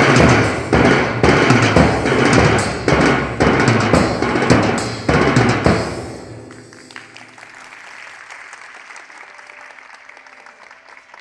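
Fast, loud hand drumming, with strong strokes about twice a second over a dense roll of lighter strokes, in the galloping rhythm of a horse-running effect. It stops about six seconds in, leaving quieter sustained ringing tones.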